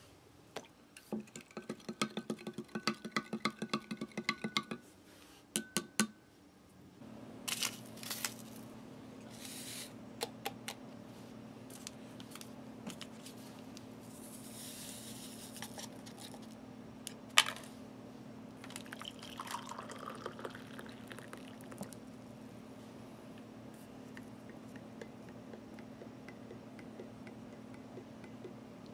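A spoon stirring a drink in a glass, a quick run of clinks with a ringing tone. Then sachets are handled and poured and a drink is stirred in a mug, with scattered clicks and rustles over a steady low hum.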